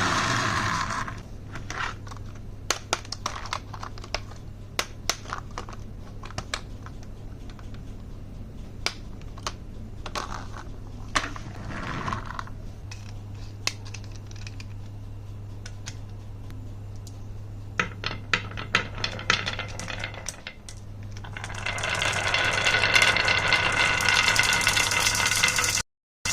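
Marbles rolling and clacking down a HABA wooden marble run: many sharp clicks over a steady low hum. Near the end a louder whirring sound with several steady tones builds up and runs on.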